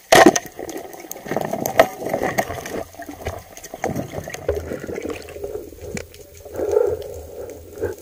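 Underwater sound of spearfishing gear and water: a loud sharp crack right at the start, then a run of scattered clicks and knocks over a gurgling water noise.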